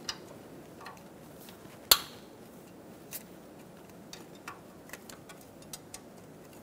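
A 13 mm wrench working on a knock sensor bolt: one sharp metal click about two seconds in, then scattered light metal ticks.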